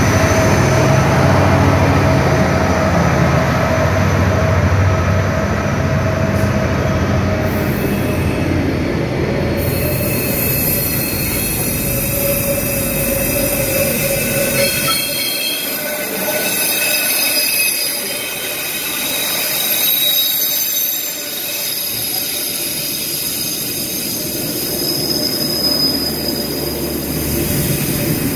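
Freight train passing close by: the diesel engine of the trailing Pacific National locomotive hums low for the first several seconds. Then container wagons roll past with steady wheel noise and high-pitched wheel squeal.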